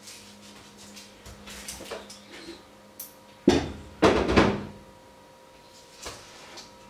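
Kitchenware clattering at the sink: a stainless steel bowl and a plastic jug handled and set down, with a sharp clunk about three and a half seconds in and a second, longer clatter just after.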